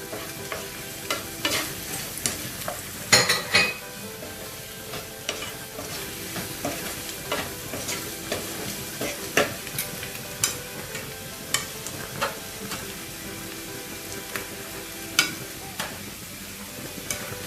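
A sauté of butter, onion, garlic and celery sizzling in a frying pan while being stirred. A steady sizzle runs under frequent, irregular sharp clicks and scrapes of a utensil against the pan, with a burst of them about three seconds in.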